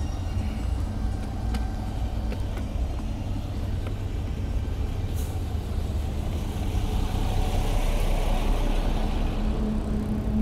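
Road traffic on a city street: a steady low engine rumble, with one vehicle's tyre and engine noise swelling and passing in the second half.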